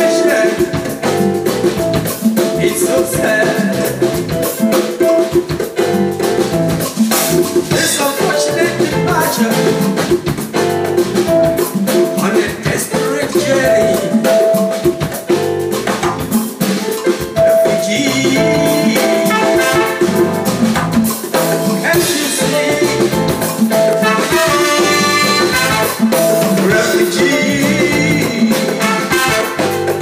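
Live highlife band playing a song on electric guitar, keyboard, drum kit and conga drums.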